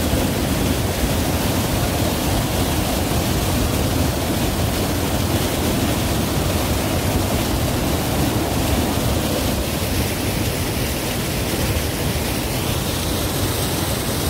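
Waterfall: a steady, deep rush of falling water that holds unbroken throughout.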